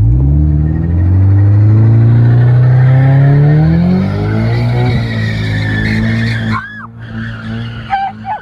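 Car engine accelerating with its pitch climbing steadily, dropping at a gear change about four seconds in, then running steady before easing off. Near the end there are a few short high squeals.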